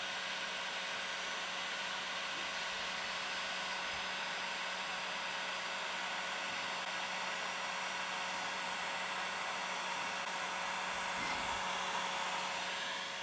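Electric heat gun running steadily, blowing hot air with a constant low hum under the rush of air, as it heats old paint on a wooden drawer so the paint can be scraped off.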